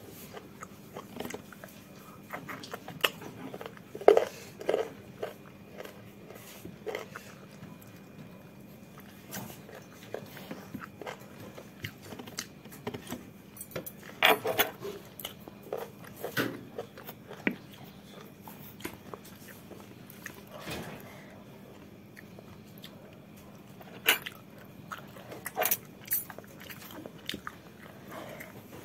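Close-up eating sounds of a person chewing chicken eaten by hand: irregular mouth smacks and chewing clicks, with occasional taps of fingers on the plate.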